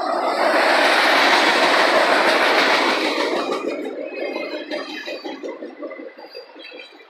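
Freight train of autorack cars rolling past close by: steady wheel-on-rail rumble and rattle with a clickety-clack of wheels over the rail joints. It grows loud about half a second in, then fades away over the last few seconds.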